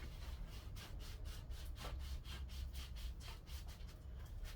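Quick repeated scraping strokes, about four a second, as grime and crud are scraped off the metal parts of a stripped water cooler.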